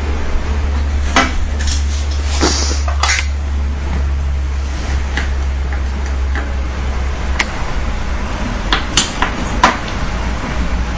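Scattered metallic clicks and knocks of a hand tool and parts being handled on a continuous band sealer's roller and belt assembly, in two clusters, the loudest knock near the end, over a steady low hum.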